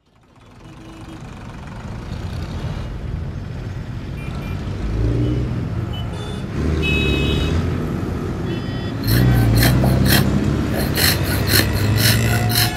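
Road traffic noise fading in from silence: engines rumbling, a few short high tones near the middle, and a quick run of sharp knocks in the last few seconds.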